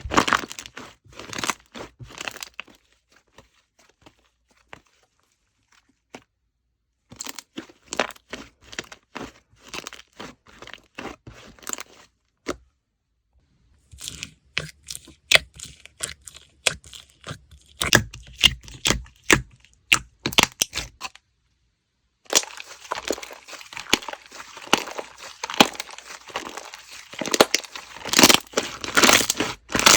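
Slime being squished, pressed and stretched by hand, giving runs of sharp crackles, clicks and pops in bursts with short pauses between. The crackling grows denser and more continuous in the last third.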